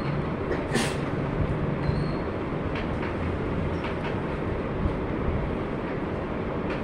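Chalk tapping and scratching on a blackboard as a line of text is written, a few short clicks with the sharpest about a second in, over a steady rushing room noise with a low hum.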